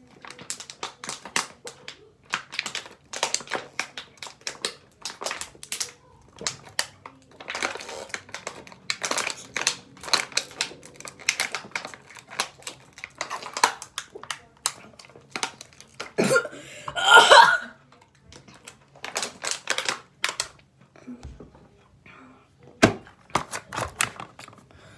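Thin disposable plastic water bottle crackling and crinkling in rapid, irregular clicks as it collapses while being chugged, with a louder, longer burst of noise about two-thirds of the way through.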